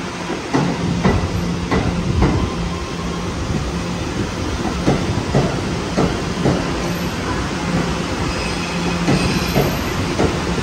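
Kawasaki R211A subway train running along the track, its wheels knocking over rail joints at irregular intervals, with a low hum that comes and goes under a steady rumble.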